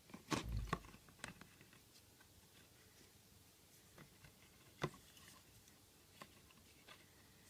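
Quiet room with faint, scattered taps and clicks of small objects being handled, and a soft thud under a second in.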